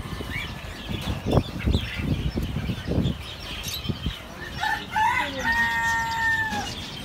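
A rooster crows once, a long held call that drops at the end, about five and a half seconds in, over a clatter of knocks and thumps and short calls from other birds.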